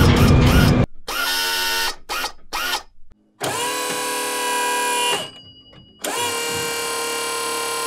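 A motor-like whir, twice: each time it rises quickly to a steady high pitch and holds for about two seconds, and the first one cuts off sharply. Before them come a few short rising and falling swooshes, and in the gap between the two whirs there are a couple of faint high tones.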